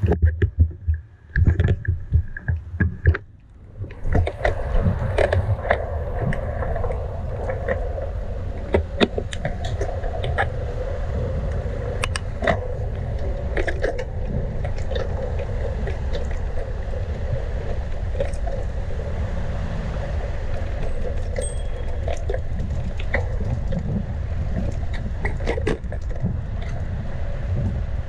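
Bicycle on the move: several loud knocks and bumps in the first few seconds, then a steady rumble of tyres rolling on the road, with scattered clicks and rattles.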